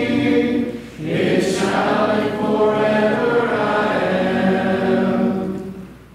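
Congregation singing a hymn a cappella, many voices together. The singing breaks for a breath about a second in, then carries a final line that dies away near the end.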